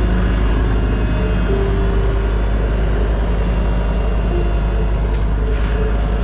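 Gehl skid steer loader's diesel engine running steadily as it drives, heard from the operator's seat: a loud, even low rumble, with short higher tones that come and go as the machine works.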